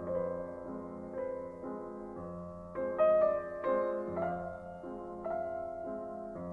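Background piano-like keyboard music: notes and chords struck about once a second and left to ring, over a sustained low note.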